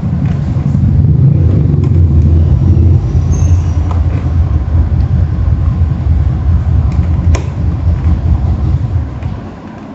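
Loud, low rumble of a vehicle engine running, holding steady and then dropping away near the end, with a few sharp clicks over it.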